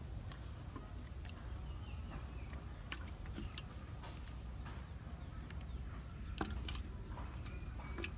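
Raw chicken feet dropped by hand into a large metal wok, landing with a scatter of soft taps and light thuds against the metal, over a low steady rumble.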